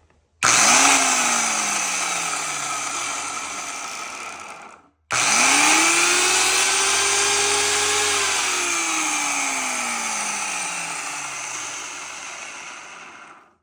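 Graco X5 Magnum paint sprayer's electric motor run twice. The first time it starts suddenly and winds down within about four seconds. The second time it spins up, holds a steady whine for a few seconds and then winds down slowly, the pitch falling. The machine is newly freed from seizing and sparks as it runs, which the owner puts down to lubricating oil flying off it.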